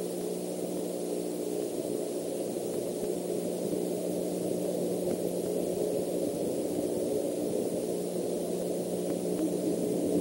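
Steady low rumbling background noise with a faint steady hum; no owl calls.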